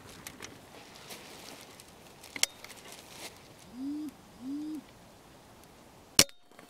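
A sharp click about two and a half seconds in, then two low coos from a wood pigeon, then near the end the single sharp crack of a Weihrauch HW97 spring-piston .177 air rifle firing.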